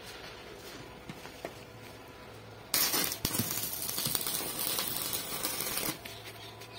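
Stick (arc) welding with a 230 A inverter welder: about three seconds in the electrode arc strikes and runs with a loud, dense crackling hiss for about three seconds, then breaks off suddenly. A faint low hum runs under it.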